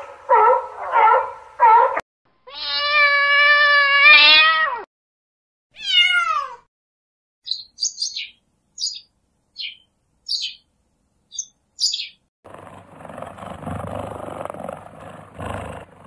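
A run of animal calls one after another: a harbor seal pup's quick wavering calls, a long drawn-out wavering call, and a short call falling in pitch. Then come a string of short, high bird chirps, and in the last few seconds a rough, noisy growl.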